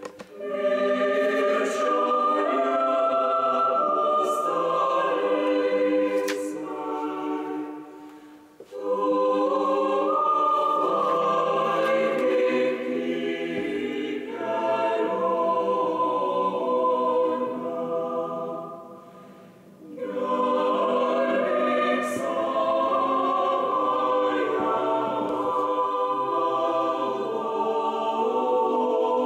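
Choir singing a Lutheran hymn in long held chords, with two short breaks between phrases.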